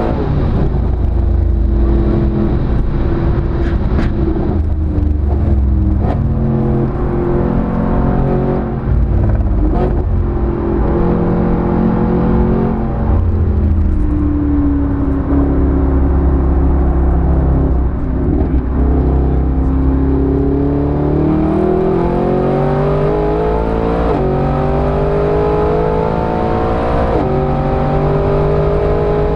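Mercedes SLS AMG's 6.2-litre V8 under hard driving, heard from a camera on the car's flank: the engine note climbs and drops with gear changes, settles to a low drone around the middle, then climbs steadily in a long pull through one gear near the end.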